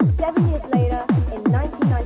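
Fast makina dance track: a booming kick drum drops in pitch on every beat, about three beats a second, under a looping synth melody.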